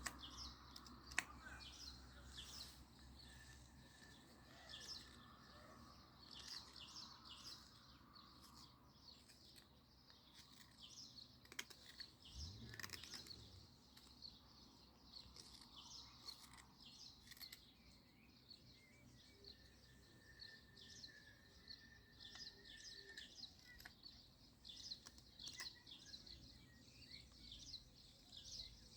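Faint birds chirping, with a run of light, quick clicks and scrapes throughout and two sharp clicks about a second in.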